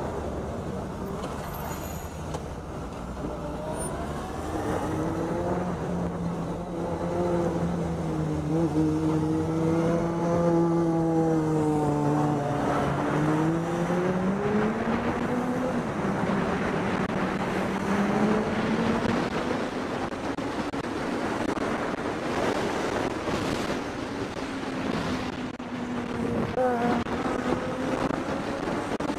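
Motorcycle engine running as the bike filters through traffic, over a steady rush of road noise. Its pitch dips and then climbs again about halfway through as the throttle changes.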